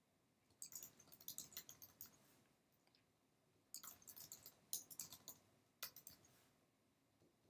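Typing on a computer keyboard: two quick runs of key clicks, the first starting about half a second in and the second a little past the middle.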